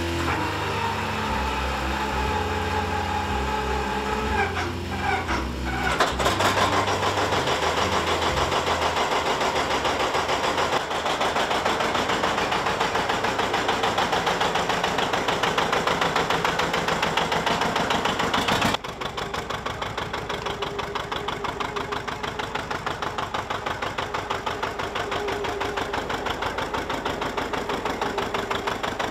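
John Deere 720 Diesel tractor being started: its four-cylinder gasoline pony motor screams at high speed, then about six seconds in the two-cylinder diesel catches and runs on with a steady, rhythmic beat.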